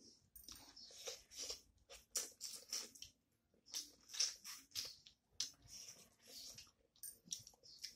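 Close-up chewing and lip-smacking of a person eating a curry meal by hand, heard as a quick, irregular run of smacks and clicks.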